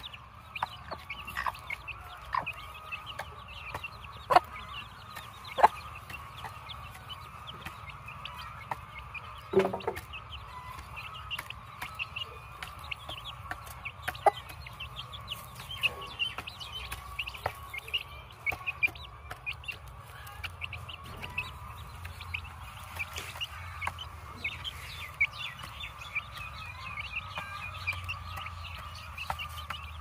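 Chickens clucking, with many short high chirps throughout over a steady high hum. A few sharp clicks stand out as the loudest sounds, two of them a few seconds in.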